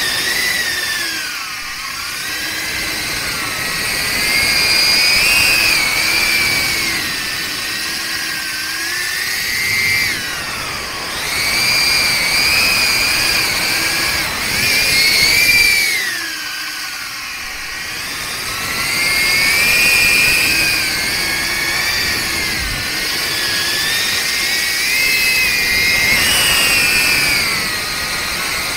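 Darwin FPV CineApe 25 cinewhoop's brushless motors and 63 mm ducted props whining in flight, the pitch sliding up and down every few seconds with throttle changes.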